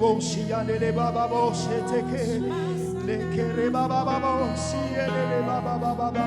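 Slow live worship music: held keyboard chords with a voice singing softly over them.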